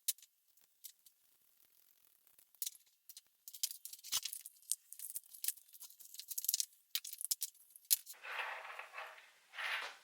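Hand work on small metal parts: a run of light clicks, taps and scrapes, then two hissing bursts near the end, the second shorter.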